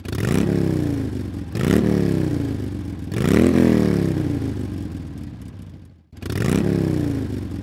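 Harley-Davidson Road Glide's V-twin engine being revved: four quick throttle blips, each rising sharply in pitch and then dying away slowly toward idle.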